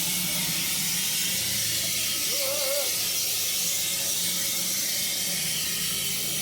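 Darjeeling Himalayan Railway toy-train steam locomotive releasing a steady hiss of steam, with a low hum underneath.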